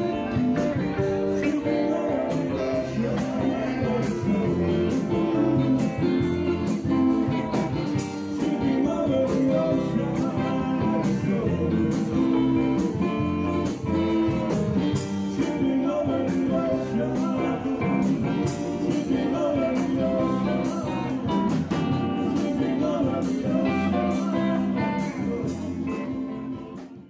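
Band music with strummed guitars over a steady drum beat, fading out near the end.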